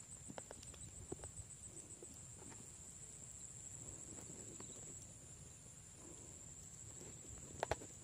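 Faint outdoor ambience: a steady high-pitched insect drone, with scattered light knocks and rustles from handling and a few louder knocks near the end.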